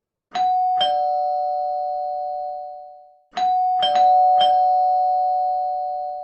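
Two-tone doorbell chime sounding a ding-dong: a higher note then a lower one, each ringing on and fading slowly. It rings again about three seconds in with a quicker run of strikes.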